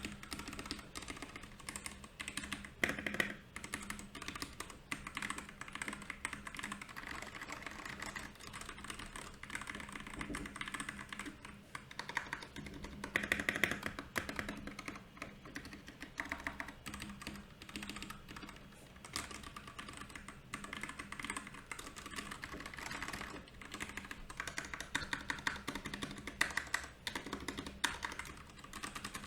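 Continuous typing on a Royal Kludge RK68 mechanical keyboard: rapid, uneven keystroke clicks and clacks from its switches, with louder flurries now and then.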